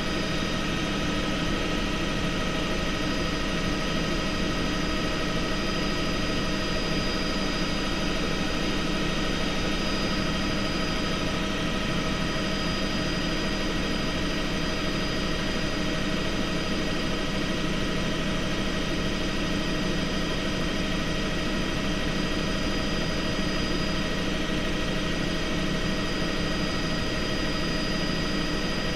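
Helicopter turbine and rotor noise heard from inside the cabin in steady cruise: a constant rushing drone with several high, steady whines layered over it.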